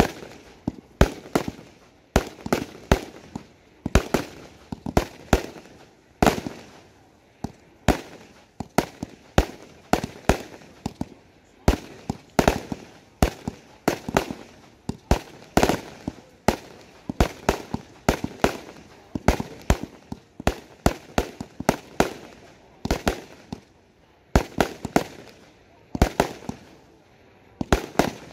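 Da Wei Detonator 196-shot compound firework box firing a continuous volley: a rapid run of sharp bangs, two or three a second, as its shells launch and burst overhead.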